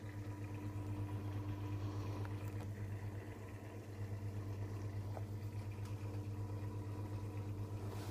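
Aquarium filter pump humming steadily, a low mains-type hum with a faint higher tone over it and a couple of faint ticks.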